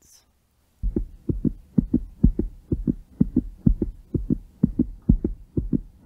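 Heartbeat sound effect playing back: low double thumps (lub-dub) repeating about twice a second, starting about a second in.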